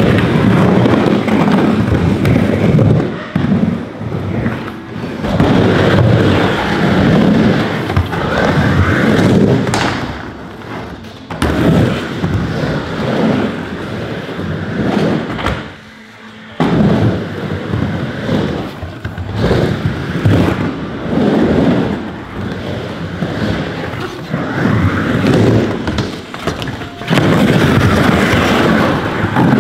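Skateboard wheels rolling over a wooden bowl, the rumble swelling and fading as riders carve up and down the walls, with occasional thumps of the board and a short lull about halfway through.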